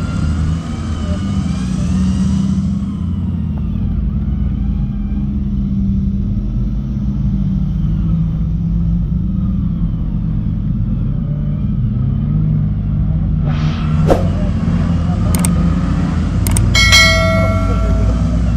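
Off-road 4x4's engine running in a loud, uneven low rumble as it works to climb a slippery, muddy track. A few sharp clicks and a short bell-like chime come near the end.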